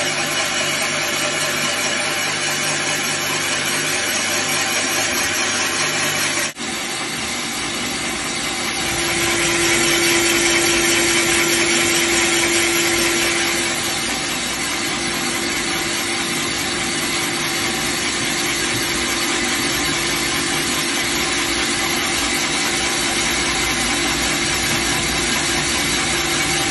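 Portable cylinder boring machine running steadily as its cutter bores a cylinder of the Citroën Saxo VTS engine block out to oversize for larger pistons. There is a brief drop about six and a half seconds in, and the steady machining tone swells louder for a few seconds afterwards.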